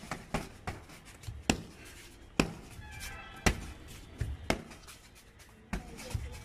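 Fists and feet striking a filled sack hung as a makeshift punching bag: a series of sharp thuds at irregular intervals, some in quick succession.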